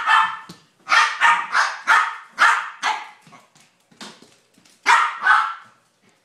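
Dog barking: a quick run of about seven sharp barks, a pause, then two more near the end.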